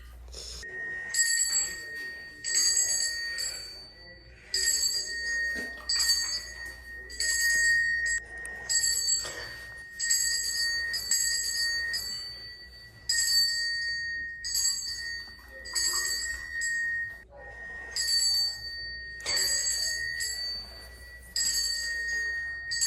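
A small bell rung again and again, about once a second in short runs, each ring a clear high tone that lingers. It is the signal that a treat is coming for a dog being conditioned to the bell.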